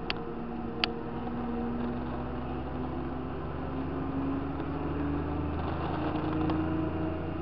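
Tractor engine running on the road, heard from the cab, its note rising gradually as it picks up speed. Two sharp clicks sound within the first second.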